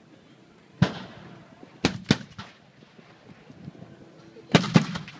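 Civil War field cannons firing in a reenacted artillery bombardment: a single report about a second in, two more close together around two seconds, then a quick cluster of three near the end.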